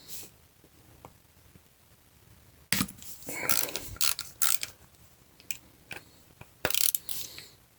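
Hand tools clicking and scraping against small metal carburetor parts in short, irregular bursts. The sounds begin about two and a half seconds in and cluster loudest near the middle and again near the end.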